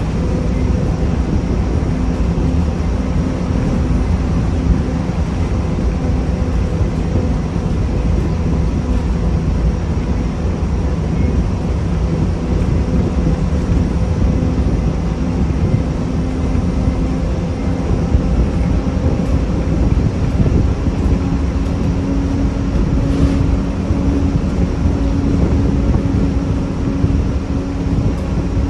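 1993 Gillig Phantom 35-foot transit bus with a Cummins ISM diesel and Allison B400R transmission running under way, a steady hum over a low rumble, with a loud grinding noise that the owner suspects comes from the transmission.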